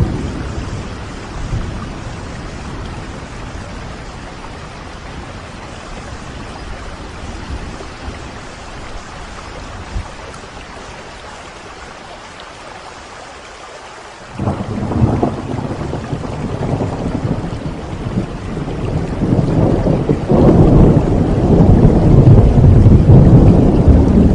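Steady rain falling, then a low rumble of thunder starts suddenly about fourteen seconds in and grows louder toward the end.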